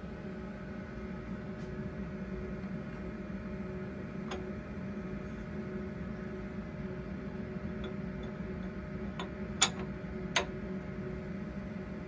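Low, steady machine hum with a few sharp clicks, two of them close together near the end.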